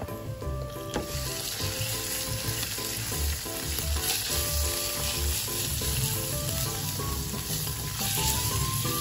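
Ground pork frying with onion and garlic in hot oil in a nonstick wok, sizzling steadily while a wooden spatula stirs it. The sizzle grows louder about a second in.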